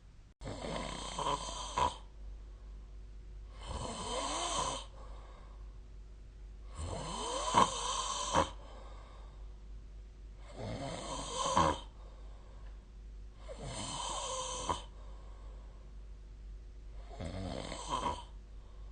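A sleeping person snoring: six rasping snores at an even rhythm, one about every three and a half seconds, each lasting a second or so with a sharp catch near its end.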